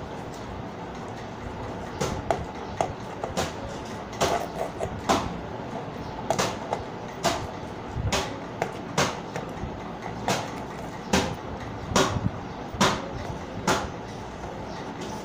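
Gift-wrapping paper on a small cardboard box crinkling and tearing as it is picked at and peeled off by hand. It comes as a run of short, sharp crackles and rips, just under two a second, starting about two seconds in, over a steady hiss.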